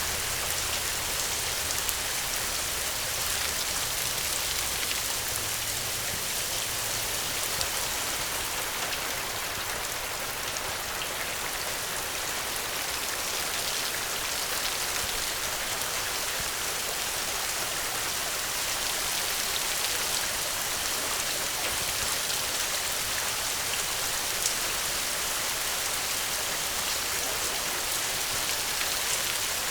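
Steady rainfall, a dense even patter of drops hitting surfaces, with many small individual drop ticks throughout.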